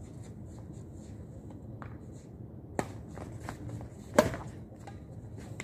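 Badminton rackets hitting a shuttlecock: two sharp hits about a second and a half apart, the second louder, over soft scuffing footsteps on the court.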